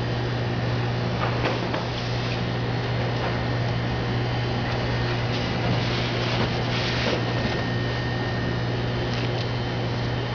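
A steady low hum from room equipment, with a few faint knocks and rustles from the plates being handled.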